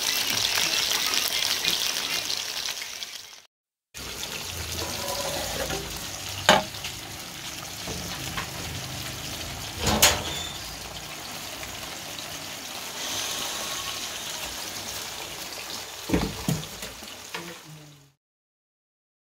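Potato chips sizzling loudly as they fry in hot oil, cutting off after about three and a half seconds. Then a quieter, steady bubbling from a pot of rice and vegetables cooking, with a few sharp knocks and a wooden spoon stirring near the end.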